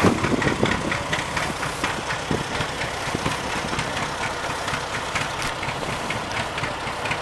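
Heavy vintage tractor engine idling steadily with a regular knocking beat.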